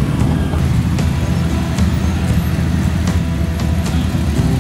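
Several motorcycle engines running together in a steady low rumble as bikes ride off one after another.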